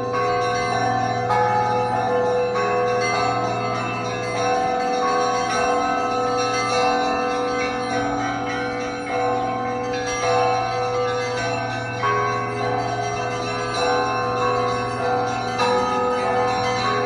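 Russian Orthodox church bells of the Trinity-Sergius Lavra ringing a continuous peal. Many bells sound together: a low bell hums steadily underneath while smaller bells are struck again and again.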